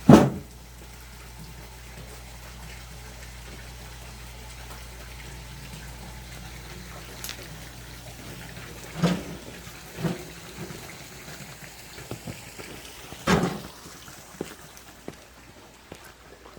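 Water running steadily, with a few sharp knocks: one at the start, two about nine and ten seconds in, and the loudest about thirteen seconds in.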